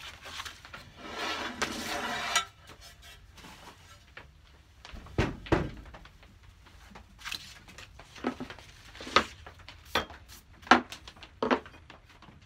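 Workbench handling sounds: a sheet of abrasive paper rustles as it is slid aside, a low thump comes about five seconds in, then a string of sharp clicks and knocks follows as the metal router plane is set down and handled on the wooden board.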